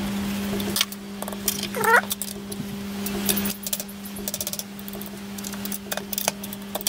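Small metal clicks and taps as a screwdriver and a small spanner tighten the screws of a switch bracket on a faceting machine, with a short rising squeak about two seconds in. A steady low hum runs underneath and weakens about halfway through.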